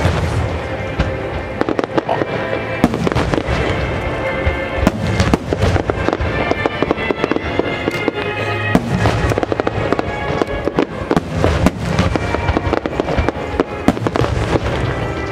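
Aerial fireworks shells and low rapid-fire barrages bursting in a dense, unbroken run of bangs and crackles, over the show's accompanying music.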